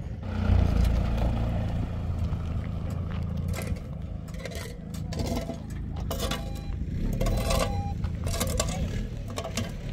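Pickup truck engine running with a steady low rumble as it drives over rough ground. From about the middle on, a series of sharp scrapes and clatters is heard.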